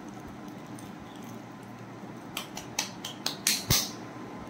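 A quick, irregular run of six or so short, sharp clicks and crackles about halfway through, getting louder towards the end and ending in the loudest one, which has a dull thump under it.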